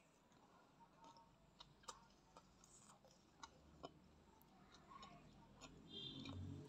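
Quiet eating sounds close to the microphone: faint, scattered wet clicks at irregular intervals, with fuller eating noise building near the end.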